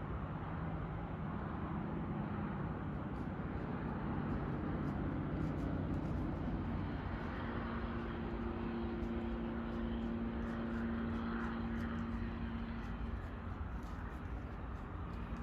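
A distant engine droning steadily. Its hum settles to a steadier, slightly higher pitch about halfway through, then fades back into the background.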